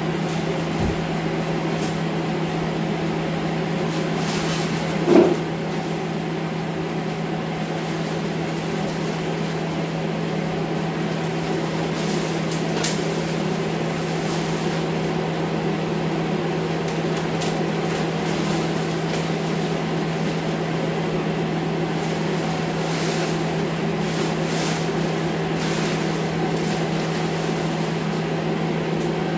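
Steady hum of a running electric fan or blower, with a few faint crinkles of plastic sheeting being handled and one short louder thud about five seconds in.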